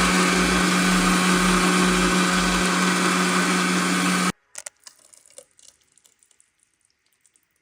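Electric mixer grinder running steadily at high speed, grinding dosa batter. It cuts off suddenly about four seconds in, and a few faint clicks and taps follow.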